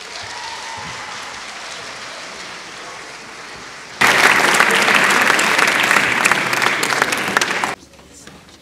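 Audience applauding, moderate at first, then a sudden much louder burst of clapping from about four seconds in that cuts off abruptly near the end.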